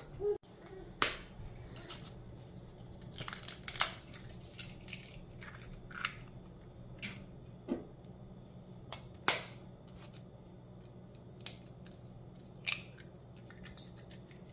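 Raw eggs being cracked one after another, sharp cracks of shell every second or two.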